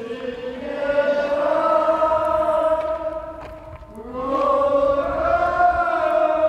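A group of voices singing a slow chant in long held notes, in two phrases: the second begins about four seconds in. The singing resounds in a natural rock amphitheatre.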